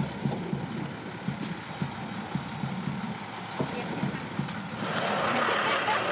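A vehicle engine idling with a rough low rumble, and a broader rushing noise that grows louder about five seconds in.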